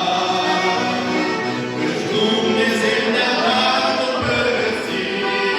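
A group of young voices singing a Christian hymn together in several parts, with held, sustained notes.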